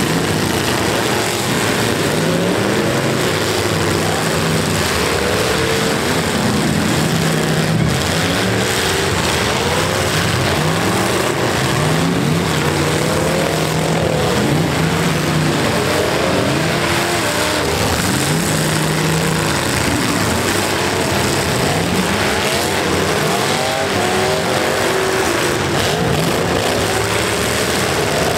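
Several demolition-derby pickup truck engines revving together, their pitches rising and falling over one another as the trucks drive and push in the arena.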